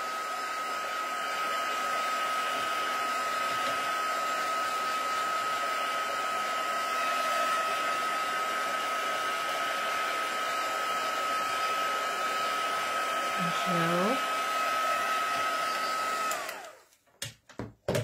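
Craft heat tool blowing steadily with a constant high whine, drying the wet, splattered ink on a card. It switches off about sixteen seconds in, followed by a few light handling knocks.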